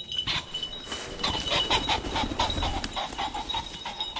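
Young pheasant-hunting dog panting in quick, even breaths.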